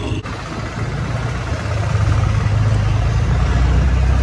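A car driving: a steady low engine hum with road noise, getting louder about two seconds in. The sound changes abruptly just after the start.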